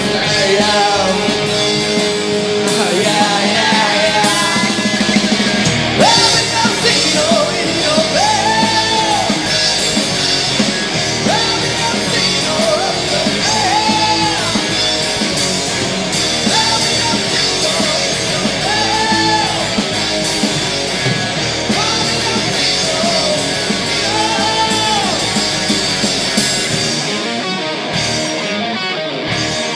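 Rock band playing live: distorted electric guitars over drums. A short rising-and-falling melodic phrase repeats about every two and a half seconds through most of it.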